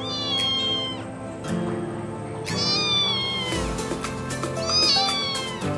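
Young tortoiseshell kitten meowing: three high-pitched calls, each falling slightly in pitch, over steady background music.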